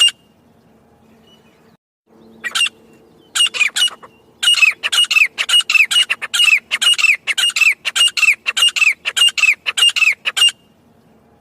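Grey francolin calling: after a short lull, a few single harsh notes, then a fast run of loud, repeated grating calls, about two a second, that stops shortly before the end.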